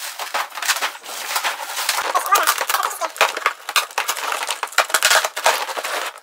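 Cardboard and plastic wrap crackling and tearing as a taped box is cut open with a knife and its flaps pulled apart, a dense run of rustles and sharp cracks.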